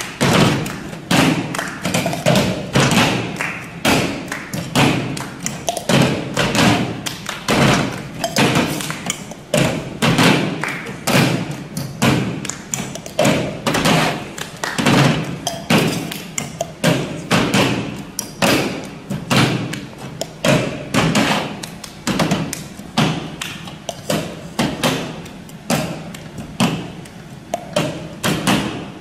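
A group playing a cup rhythm: many cups thumped and tapped on a tabletop, with hand claps, in a quick repeating pattern.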